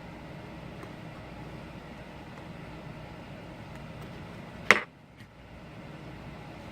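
Steady background hiss or hum, with one sharp click or knock nearly five seconds in.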